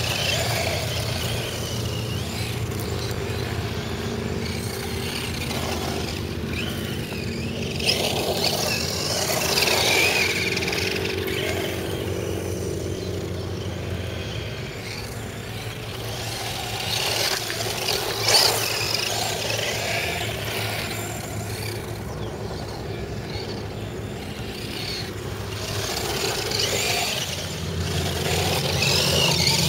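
Thunder Tiger Jackal 1/10-scale electric 4WD RC buggy driving on loose dirt: its motor and tyres on the dirt swell and fade as it moves around, over a steady low hum. A sharp knock about 18 seconds in is the loudest moment.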